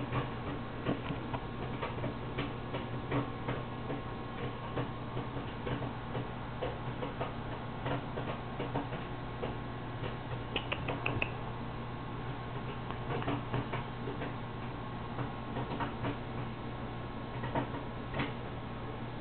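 A cat crunching dry cat biscuits: irregular small crunches and clicks, with a quick run of four sharper ticks about eleven seconds in, over a steady low hum.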